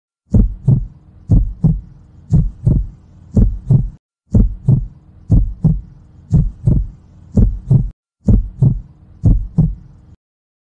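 Heartbeat sound effect: about ten double thumps, one pair roughly every second, over a faint low hum, cutting off abruptly near the end.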